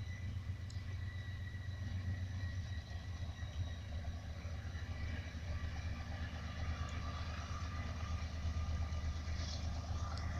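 Diesel freight locomotives running with a steady low rumble, with faint steady high tones above it.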